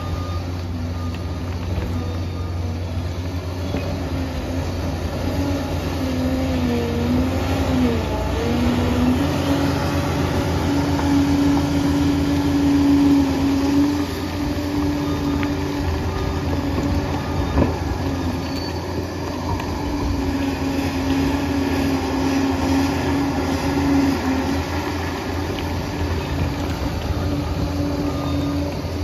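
Liebherr 746 crawler dozer working: a steady diesel drone with a whine on top that dips and comes back up in pitch about a quarter of the way in. There is a single sharp click a little past halfway.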